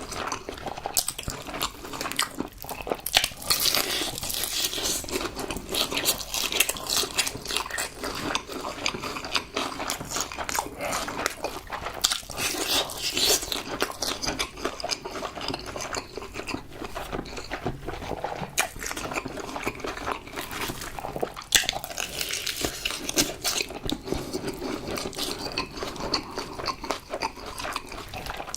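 Crispy fried chicken being bitten into and chewed close to the microphone: a run of sharp crunches and crackles with wet chewing in between.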